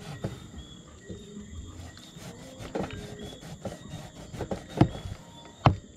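A large knife sawing and scraping through the skin of a seasoned whole fish, with scattered sharp knocks as the blade meets the tray, the loudest two near the end. The knife is one the cook says could be sharper.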